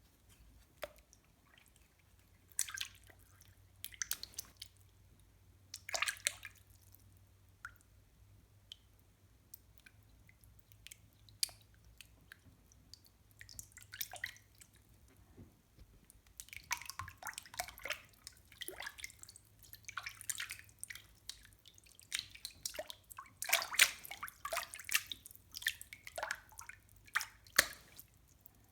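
Water dripping and splashing in irregular drops, a few scattered drops at first, then a dense run of drips from about halfway through.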